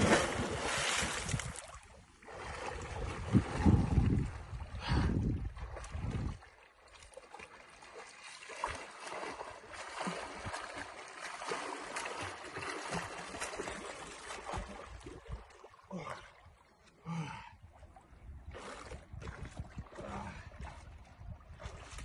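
A man jumping into a lake: a loud splash as he hits the water right at the start, then the lighter splashing of his swimming strokes. A low rumble comes and goes a few seconds in.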